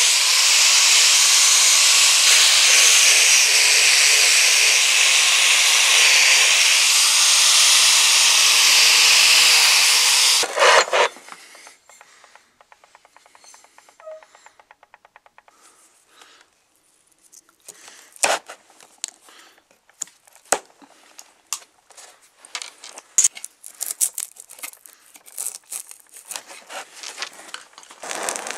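Angle grinder with a wire cup brush scouring rust off the metal sole plate of an old iron, a loud steady hiss that cuts off after about ten seconds. Then quiet scattered clicks and knocks of the parts being handled.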